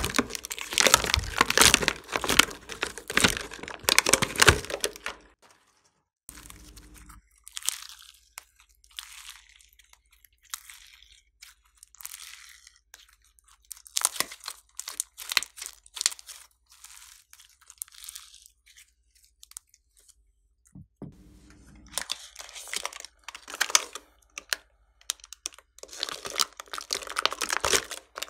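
Slime being mixed and squeezed by hand, giving a stream of sticky crackling and clicking pops. The pops are dense at first, stop briefly about five seconds in, come sparsely through the middle, and grow dense again near the end.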